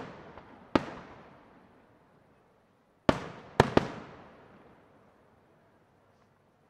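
Aerial firework shells going off: a sharp bang under a second in, then three more in quick succession about three seconds in, each trailing off in a long echoing rumble.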